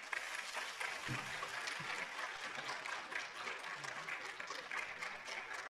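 Audience applauding, many hands clapping at a steady level.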